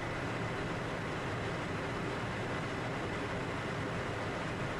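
Steady in-flight cockpit noise of a Cessna Citation business jet: an even rush of airflow and turbofan engine noise in cruise, with a faint steady high whine.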